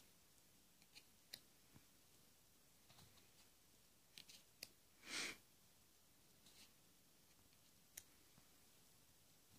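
Faint clicks and taps of cards being lifted off a small deck and laid down, with one short swish of a card sliding about five seconds in.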